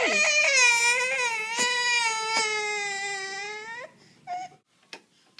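A baby crying: one long wail that slowly drops in pitch and breaks off about four seconds in, followed by a short whimper.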